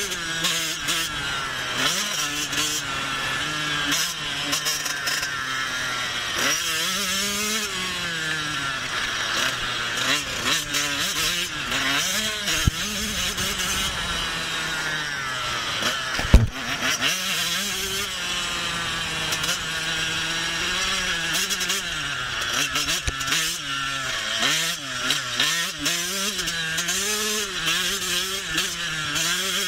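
Husqvarna TC 85 two-stroke motocross bike engine being ridden hard, its pitch rising and falling as the throttle is opened and shut. A sharp knock about halfway through is the loudest moment.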